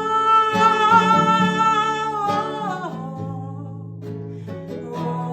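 A singer holds one long sung note over acoustic guitar, the note ending about halfway through, after which the guitar rings on alone and is strummed again near the end.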